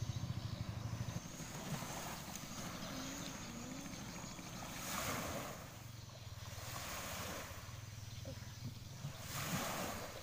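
Small waves washing onto a sandy shore, swelling twice, with wind rumbling on the microphone.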